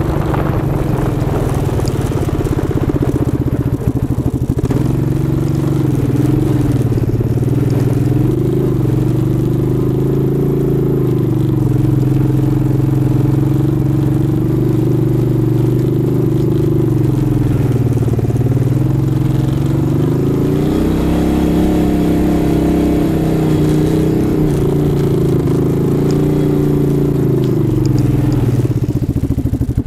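ATV engine running, heard up close from a camera mounted on the quad, its pitch rising and falling with the throttle as it rides.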